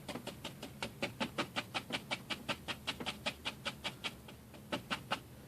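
Paintbrush tapping and dabbing on a stretched canvas in a quick, even rhythm of about six taps a second. The taps stop about four seconds in, then two more come near the end.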